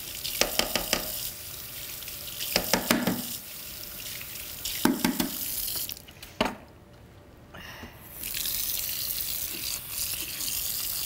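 Kitchen tap running water into a sink, with a few clusters of knocks and clatters from things handled at the sink. The water stops about six seconds in and starts again about two seconds later.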